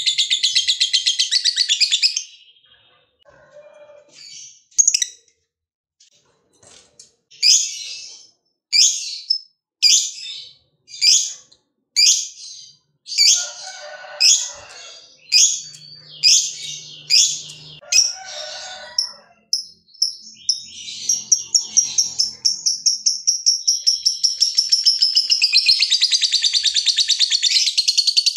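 Fischer's lovebird calling: a rapid chattering trill at the start, then a run of sharp single chirps a little under a second apart, then from about twenty seconds in a long, fast, unbroken trill that grows louder. That long trill is the 'ngekek panjang' that keepers prize in a bird in full song.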